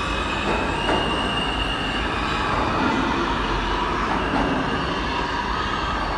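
New York City subway F train pulling out of the station and running away down the tunnel: a steady rumble of the cars on the rails, with a high thin wheel squeal that fades after about two seconds.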